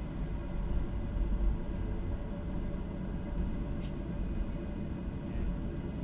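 Cabin noise of a Boeing 737-800 taxiing: a steady low rumble from its CFM56-7B engines at idle and the wheels rolling over the taxiway, with a faint steady whine above it.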